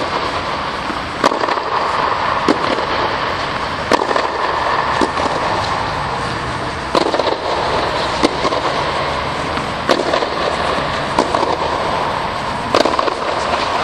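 Tennis balls struck by rackets and bouncing on an indoor hard court: a sharp pock every second or so, over a steady background hiss.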